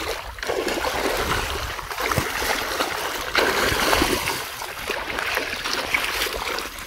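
Water splashing and trickling: an uneven, rushing wash with irregular small splashes.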